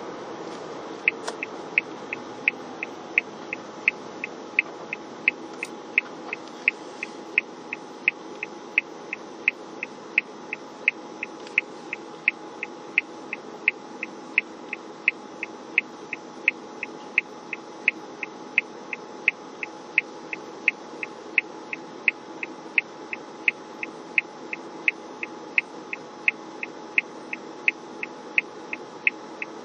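A car's turn-signal indicator ticking steadily, about two ticks a second, heard inside the cabin over the low hum of the car idling while stopped and waiting to turn.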